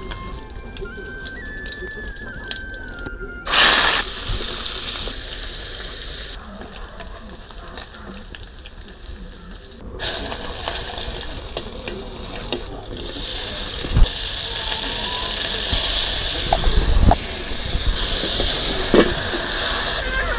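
Cooking fat sizzling over a wood fire. About ten seconds in, pork tipped into a hot steel wok sets off a sudden, louder frying sizzle that keeps going, with a few sharp clicks of chopsticks against the wok.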